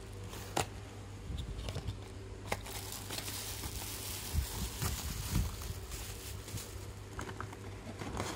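A cardboard box being opened by hand and the wrapping inside handled: a few sharp clicks of the flaps, then a few seconds of crinkling and rustling with some bumps in the middle.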